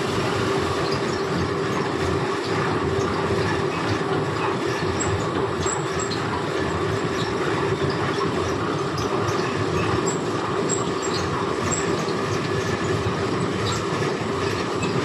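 Fabric checking machine running steadily with cloth feeding through its rollers: a continuous hum over a dense mechanical rattle.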